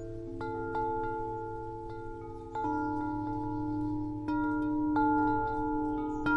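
Wind chimes ringing: several tubes struck a second or two apart, their tones overlapping as they ring on, over a steady low hum.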